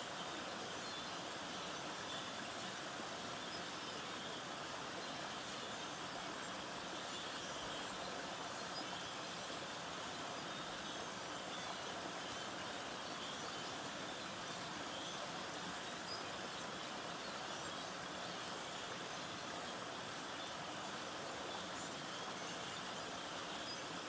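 Small creek pouring over a fallen log and brush dam: a steady rush of running water.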